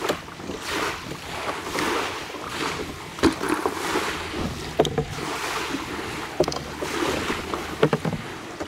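Water washing and slapping against a Hobie Compass kayak's hull as it moves, surging about once a second, with wind on the microphone and a few sharp knocks.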